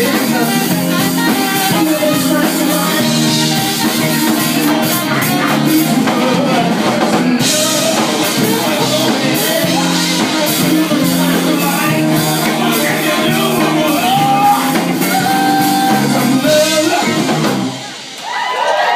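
Live band playing, with a tenor saxophone lead over drum kit, including some long held notes; the band stops about a second before the end and the crowd starts cheering.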